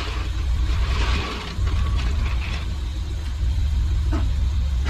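Ford F600 work truck's engine running at low speed with a steady low rumble as the truck creeps forward toward the plow mount.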